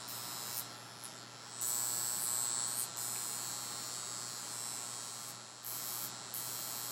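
Steady low electrical mains hum with a high hiss over it; the hiss gets louder about a second and a half in and drops out and comes back briefly a few times.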